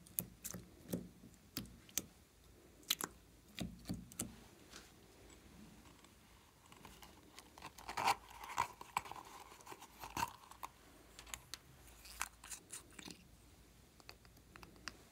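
Scattered small clicks and taps of plastic makeup containers being handled and their contents dabbed onto slime in a plastic bowl, with a denser cluster of clicks about eight seconds in as a plastic Mickey Mouse-shaped compact is handled.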